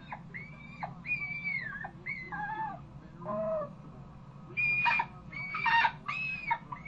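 Dog whining and squealing in a run of high-pitched cries that each rise and fall in pitch, louder and harsher for a few cries past the middle.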